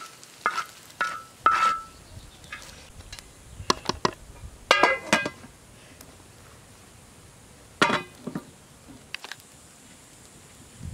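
Dishes and cooking utensils clinking and knocking in a string of sharp strikes, some with a short ring. The strikes come in small groups with pauses between them.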